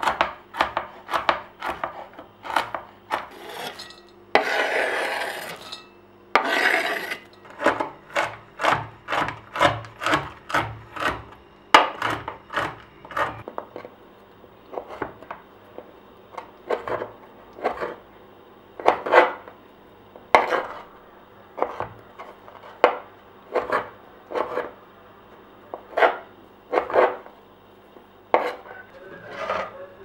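Chef's knife chopping hazelnuts on a wooden cutting board: quick knocks of the blade on the board, about three a second, with two longer scrapes about four to seven seconds in. In the second half the strikes slow to about one a second as the knife cuts soft dried apricots.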